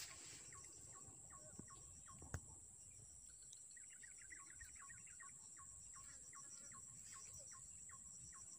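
Faint outdoor ambience of insects keeping up a steady high-pitched drone, with a bird repeating a short falling call about three times a second and breaking into a quick chattering run about four seconds in. A single sharp click sounds about two seconds in.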